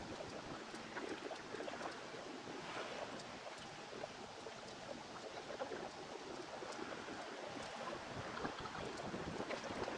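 Steady outdoor rushing of wind and moving water, with faint scattered ticks and clicks.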